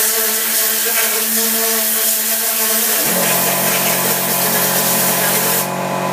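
Tornador Black compressed-air cleaning gun spraying cleaner: a steady loud hiss of air with a buzzing hum whose pitch drops about three seconds in. Near the end the hiss briefly thins out.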